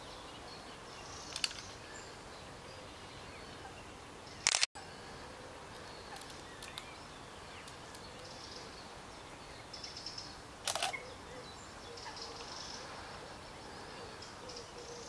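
A few sharp camera clicks: a double click about a third of the way in, cutting the sound out for an instant, and another about two-thirds in. Behind them is a faint steady outdoor hiss with faint bird chirps.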